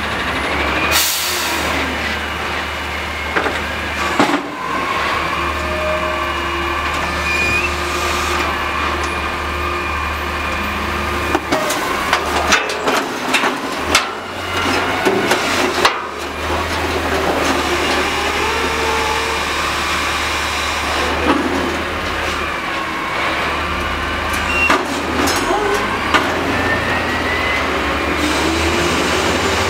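Heil Half-Pack front-loader garbage truck on a CNG Autocar ACX lifting a dumpster over the cab and emptying it: the engine runs steadily under a hydraulic whine that rises and falls as the arms move, with a short hiss about a second in. Clattering bangs come in the middle as the container is tipped and shaken out into the hopper, then the whine goes on as the arms bring it back down.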